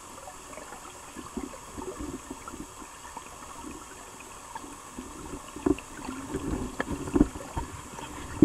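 River water flowing and gurgling, with irregular low knocks and pops that grow louder in the last few seconds.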